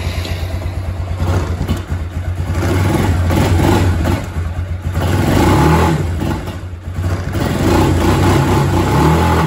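Kawasaki Bayou 250 ATV's single-cylinder four-stroke engine running on choke while still cold, with the throttle worked so the revs rise and fall several times. It runs on a freshly replaced carburetor and doesn't sound too bad.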